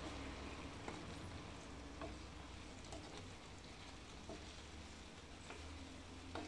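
A wooden spatula stirs and scrapes pasta in sauce in a frying pan, with light taps against the pan about once a second. Under it is a faint sizzle of the cooking sauce and a low steady hum.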